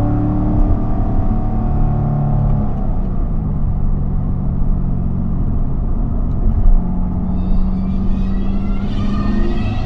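Corvette C7's 6.2-litre V8 running at a steady, moderate pitch under light throttle on a climbing road, the engine note shifting a few times. A phone starts ringing near the end.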